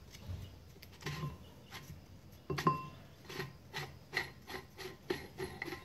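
Threaded steel retaining ring on a Caterpillar 933C steering clutch hub being spun off by hand: faint metal-on-metal scraping of the threads with scattered small clicks, and one sharper metallic click with a brief ring about two and a half seconds in.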